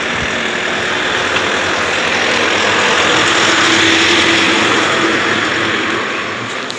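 A motor vehicle passing on the road, its engine and tyre noise swelling to a peak about four seconds in and then fading.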